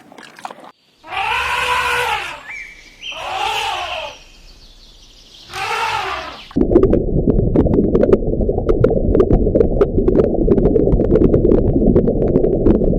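An animal calls three times, each call drawn out, pitched and rising then falling. After an abrupt cut, a loud steady low rumbling noise with scattered clicks takes over for the second half.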